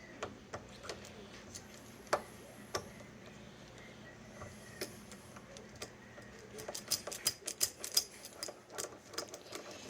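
Sparse light clicks and taps, then a quick irregular run of clicks over the last three seconds: the drilled-out ignition switch lock cylinder being handled and checked, with no drill running.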